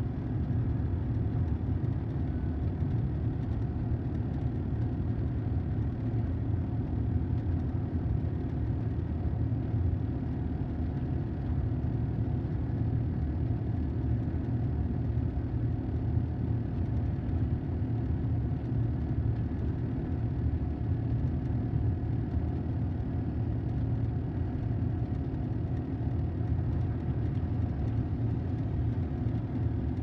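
Steady road and engine rumble inside a car's cabin while cruising on a freeway.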